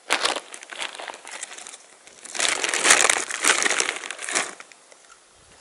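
Bag of potato chips crinkling as it is handled: a short rustle at the start, then a longer, louder stretch of crinkling in the middle.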